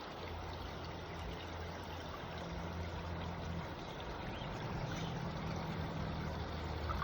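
Steady rushing of a trout stream's flowing water, with a low hum underneath.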